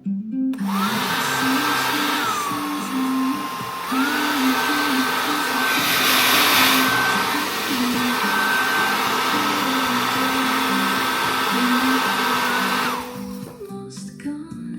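3000 W hair dryer running: a steady rush of air with a high motor whine. The whine drops lower for about two seconds near the start, then returns to its higher pitch. The dryer cuts off near the end, leaving background music.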